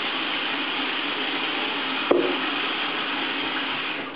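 Bathroom faucet running steadily into a sink and a plastic squeeze bottle, with a single sharp knock about two seconds in as the bottle is set down in the sink. The running water cuts off near the end as the tap is turned off.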